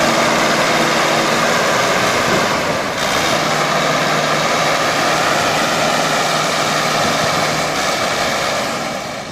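Engine of the machinery driving a mini hay baler running steadily under load while it bales wheat straw. The sound eases off slightly near the end.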